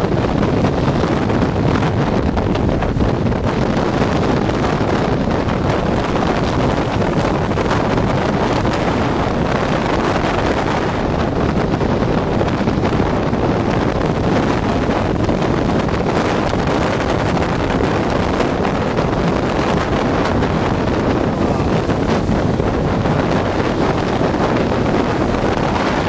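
Strong wind buffeting the microphone over heavy storm surf breaking against a stone breakwater: a loud, steady rushing noise with no separate crashes standing out.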